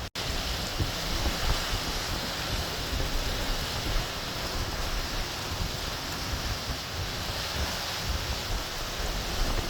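Category 1 hurricane wind gusting steadily, mixed with the rush of surf, with wind buffeting the microphone. The sound cuts out for a split second just after the start.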